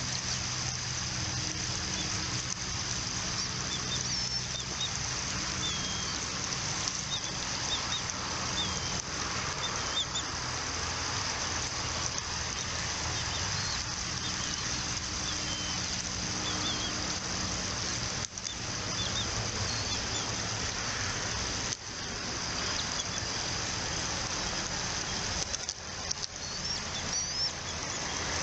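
Steady outdoor background hiss with a low, even hum underneath, and short high bird chirps coming in scattered little groups.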